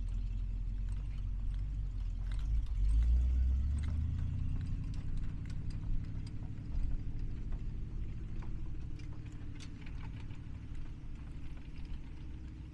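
1971 International Harvester Loadstar 1600 truck's engine pulling away, loudest about three seconds in and rising in pitch as it accelerates, then fading as the truck moves off. Scattered light clicks and rattles run over it.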